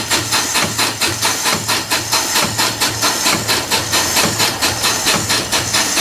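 Steam boiler feed pump running under steam and pumping water into the boiler. It goes in a steady rhythm of sharp strokes, about three a second, over a constant steam hiss.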